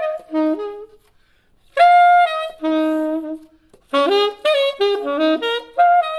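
Unaccompanied saxophone with a JodyJazz DV CHI mouthpiece playing a jazz phrase with a big, robust tone. A run of short notes stops about a second in, then after a brief break comes a held note, followed by a quick run of notes.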